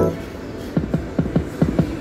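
Poker machine spinning its reels: a rapid, even run of electronic clicks, about six or seven a second, over a low hum.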